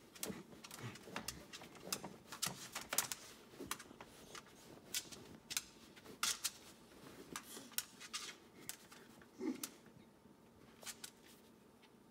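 A Corgi puppy humping and pawing at a plush fabric dog bed: irregular scratchy rustling of the fabric and sharp clicks, coming in quick uneven runs with short pauses.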